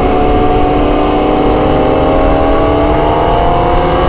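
Motorcycle engine running on the road, its pitch rising slowly and steadily as it gathers speed, over a low rumble of wind and road noise.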